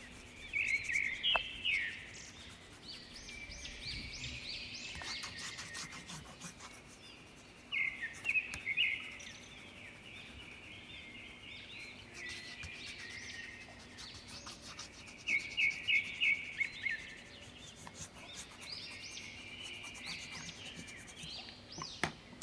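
Small birds chirping in quick bursts of high notes, four separate bouts, the loudest sound. Between them, the soft scratchy rub of crayon strokes on paper.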